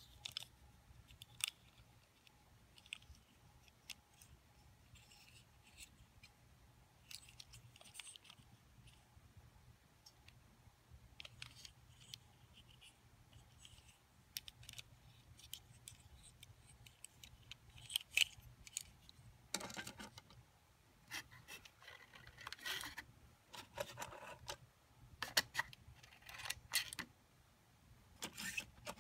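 A small die-cast and plastic slot-car truck being handled: scattered light clicks and scrapes. These grow into a louder run of scraping and clattering about two-thirds of the way in, as it is pressed onto the slot-car track. A faint steady low hum runs underneath.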